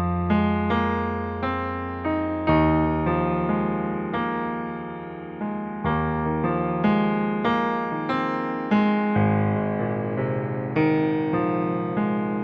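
Slow, sad piano music: single notes struck one after another, each fading away, over held bass notes that change every few seconds.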